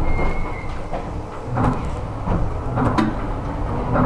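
Seibu 101-series resistance-controlled electric train starting away from a station, heard inside a motor car. A few sharp clunks sound over the low rumble of the car, and from about three seconds in the traction motors' hum begins to rise in pitch as the train picks up speed.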